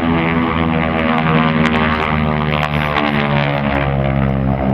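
North American Harvard trainers flying past, their Pratt & Whitney R-1340 Wasp radial engines and propellers giving a loud, steady, buzzy drone.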